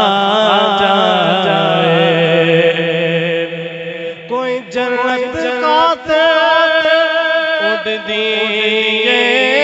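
A man reciting a Punjabi naat in praise of the Prophet Muhammad, singing long ornamented phrases with a wavering, gliding pitch, with a short break about four seconds in.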